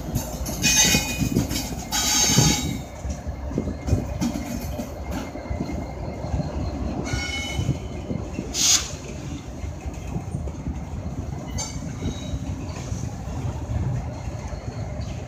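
Freight train with Norfolk Southern and CSX diesel locomotives passing close by, a steady low rumble of engines and wheels on rail. High-pitched wheel squeal rises over it about a second in and again around eight to nine seconds in.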